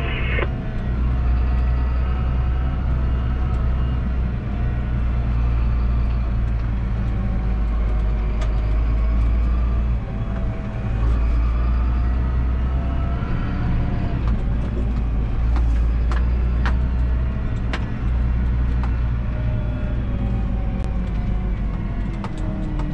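Massey Ferguson 7718S tractor's six-cylinder diesel engine heard from inside the cab, a steady low drone as the tractor drives. Its pitch rises and falls several times as the driver speeds up and slows down, with a few light clicks.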